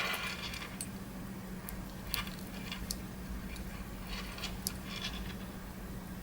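Faint, irregular small clicks from the hand-wound HMT Janata mechanical watch being wound at the crown and handled, over a low steady hum.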